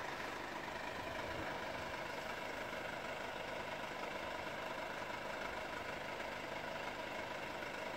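Faint, steady running of an idling vehicle engine, with no change throughout.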